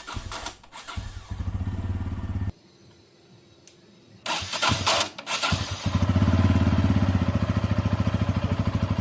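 Bajaj Pulsar N160's single-cylinder engine cold-started on its first start of the day. It runs briefly and stops about 2.5 seconds in, is started again about four seconds in, and settles into a steady idle. The owner hears a strange engine noise only on this first start of the day, cause unknown.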